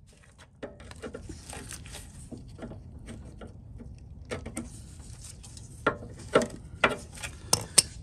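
Hand-work on a small lawnmower engine around the carburetor: scattered clicks, taps and light scraping of metal and plastic parts, with a few sharper knocks in the last couple of seconds.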